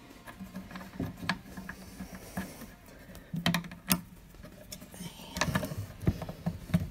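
A screwdriver working a round crosshead screw into a wooden vivarium panel: a handful of small, irregularly spaced clicks and scrapes of metal on metal and wood, with faint handling noise.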